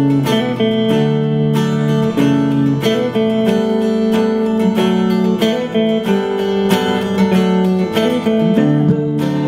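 Music of steadily strummed acoustic guitar chords, with the chord changing every second or so.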